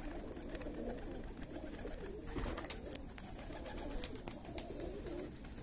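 A flock of domestic fighting pigeons cooing, a low continuous murmur from several birds, with scattered light ticks.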